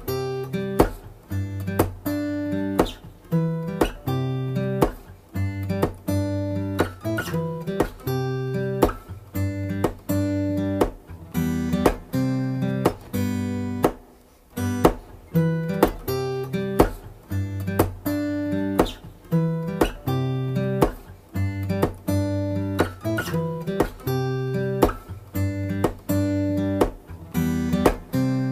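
Background music: acoustic guitar strumming chords in a steady, repeating rhythm.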